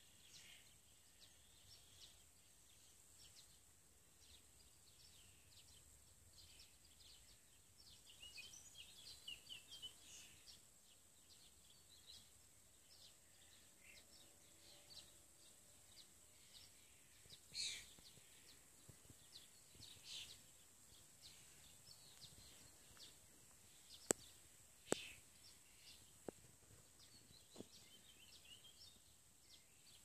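Faint twittering and chirping of small songbirds, many short high calls overlapping, densest about eight to ten seconds in. Two sharp clicks come near the three-quarter mark and are the loudest sounds.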